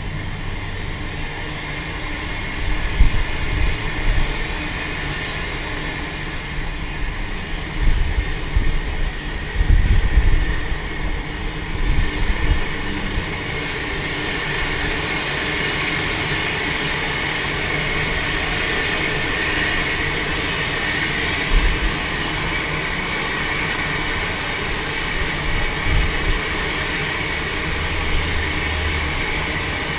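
1915 Baldwin steam locomotive running on the rails: a steady rumble and clatter with heavier low thumps now and then, more of them in the first half.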